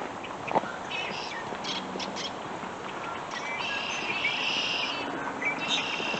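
A group of birds chirping and chattering together, with many short calls overlapping and growing denser about halfway through and again near the end.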